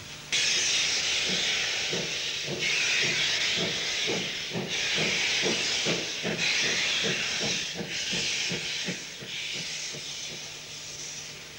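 Steam locomotive working slowly with its cylinder drain cocks open: loud steam hiss in long blasts, over a steady beat of exhaust chuffs about three a second. The hiss fades near the end.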